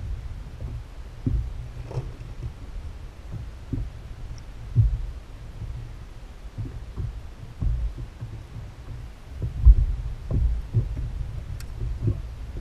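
Low rumble with irregular dull thumps, about one a second, from wind and small waves buffeting an inflatable boat at sea.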